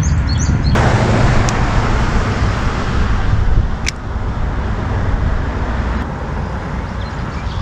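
Road traffic passing on the road beside the bridge, with a swell of passing-vehicle noise starting suddenly about a second in and fading over a few seconds, over wind rumble on the microphone.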